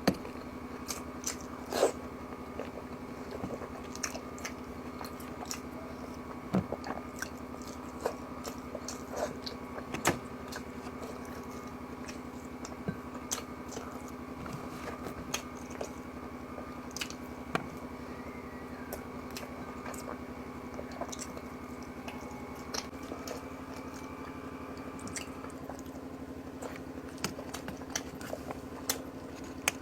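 Close-miked eating of ginataang tulingan, bullet tuna stewed in coconut milk: chewing and smacking with many short, sharp mouth clicks, over a steady background hum.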